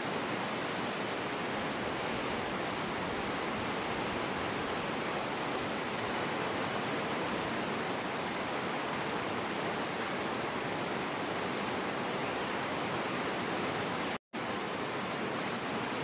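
White-water rapids of a fast river rushing over boulders in a narrow rock gorge: a steady, even roar of water, broken once by a split-second dropout about fourteen seconds in.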